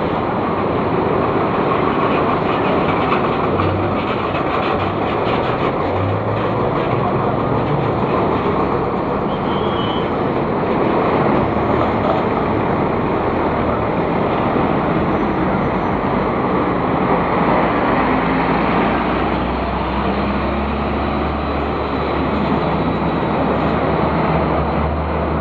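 Scania-chassis Marcopolo Paradiso 1800DD double-decker coach moving off and driving away, its diesel engine running under load with a steady low rumble over street noise.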